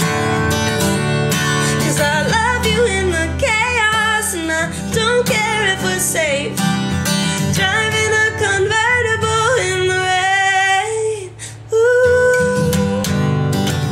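A woman singing over a strummed acoustic guitar, her voice moving up and down in wavering runs. About eleven seconds in, voice and guitar briefly drop away, then she comes back in on a long held note with the strumming.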